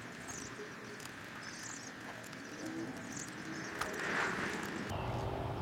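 Faint outdoor birdsong: small birds chirping a few times, and a dove cooing briefly a little past the middle.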